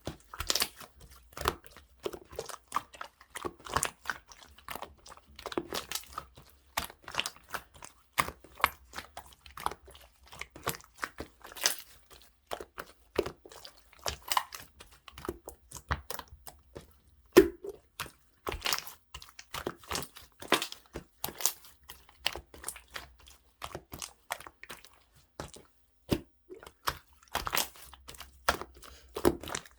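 Jelly-textured clear slime being squished and worked by hand: an irregular stream of sticky clicks and small pops.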